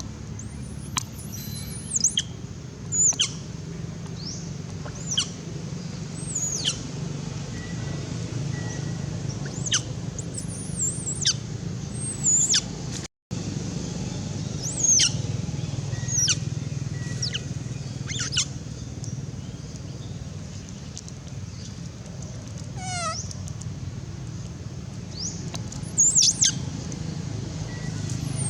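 Short, high-pitched calls, each sweeping sharply downward, repeated every second or two, with one quick falling run of notes near the end, over a steady low hum.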